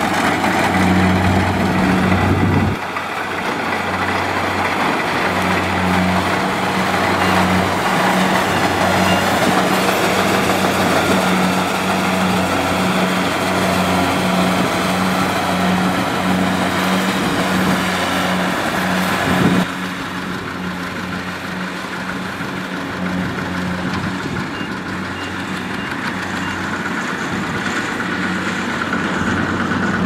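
Rice combine harvesters running steadily while cutting and threshing: an engine hum with the noise of the cutter bar and threshing drum over it. The level drops abruptly twice, about 3 s in and about 20 s in.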